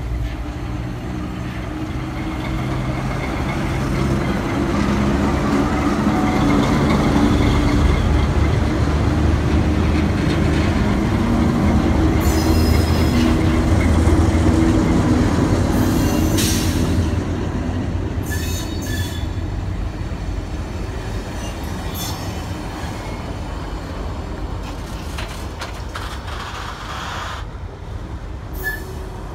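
Two GL-class diesel-electric locomotives pass close by with their engines running, and the sound is loudest as they go past. Heritage passenger carriages then roll by, and the wheels squeal several times in the second half.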